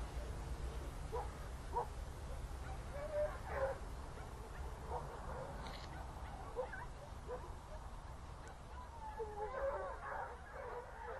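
A pack of hunting hounds giving tongue: scattered short yelps and whimpering cries, thickening near the end into a longer, wavering chorus of howls.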